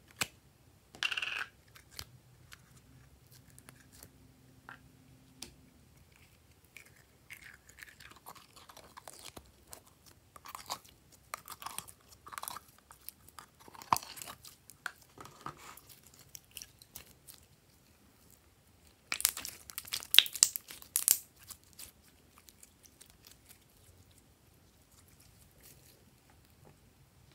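Thick metallic slime squeezed out of a plastic bottle into a glass dish: a run of soft, wet squelches and plops, then, about twenty seconds in, a louder crackling burst lasting a couple of seconds.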